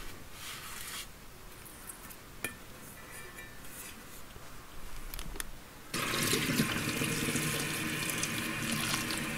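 A few faint clicks, then about six seconds in a kitchen tap comes on suddenly and water runs steadily into a stainless steel pot packed with chopped wormwood.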